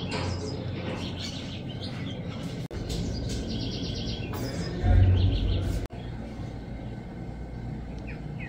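Birds chirping and trilling in rapid repeated notes over a steady outdoor background hum, with a brief louder low rumble about five seconds in.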